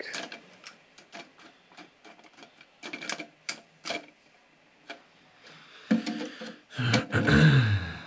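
Plastic clicking as the shaft of a Fluidmaster toilet fill valve is twisted to adjust its height. Near the end comes a louder rubbing squeak whose pitch falls as the valve is handled.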